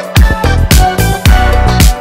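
Background music with a steady beat of drum hits over a low bass line.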